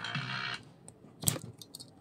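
Music playing through a small loudspeaker driven by a battery-powered homemade transistor amplifier cuts off abruptly about half a second in as the battery contact is broken. A sharp click follows, then a few light clicks from the AA battery and plastic battery holder being handled.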